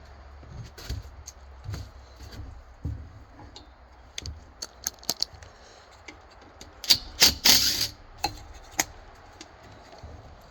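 Scattered clicks, clinks and knocks of hand tools and small metal parts being handled while an air compressor pump is taken apart, with a louder rattling scrape about seven seconds in.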